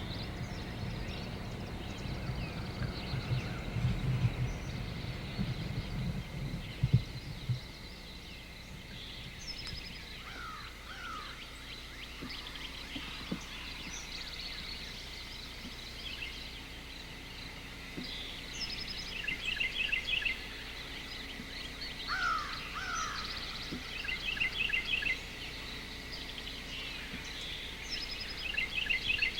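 Wild birds calling and singing: repeated quick trilled phrases, scattered high chirps, and twice a pair of falling whistled notes. A low rustling rumble, like wind or handling, runs under them for the first seven seconds or so, then stops.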